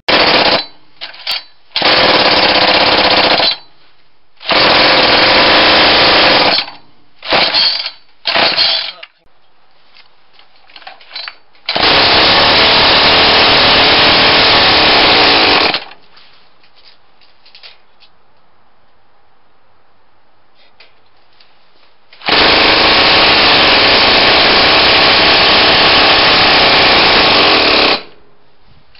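Small two-stroke engine with a cylinder cast from JB Weld epoxy running loudly with a rapid firing rattle. It runs in a series of short bursts of a few seconds each, with the longest near the end, and each burst cuts off abruptly.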